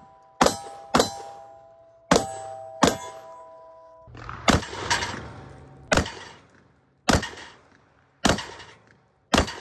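Beretta 1301 Tactical semi-automatic 12-gauge shotgun fired about nine times, roughly a shot a second. Steel targets clang and ring on after the first four hits.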